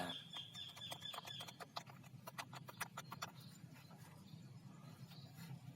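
A run of faint, irregular clicks and taps for the first three seconds or so, then only a low steady hum.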